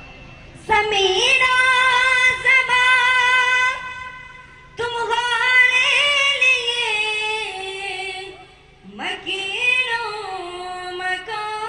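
A single high voice singing a devotional naat without accompaniment, in three long phrases of held, wavering notes with short breaks between them.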